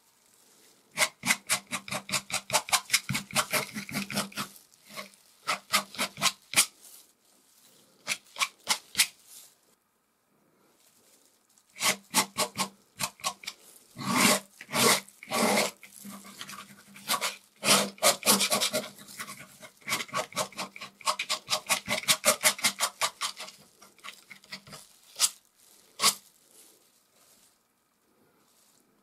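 Palette knife working oil paint in runs of quick, scratchy dabs and scrapes, several a second, with short pauses between the runs.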